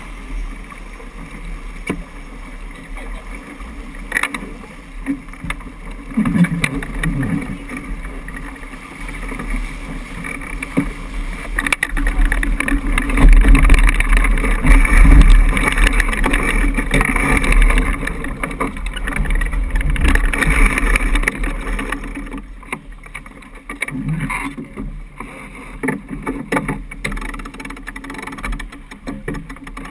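Wind buffeting the microphone with a heavy low rumble, over water rushing and splashing along a sailboat's hull as it sails hard in strong, gusty wind; the rumble is loudest from about twelve to twenty-two seconds in.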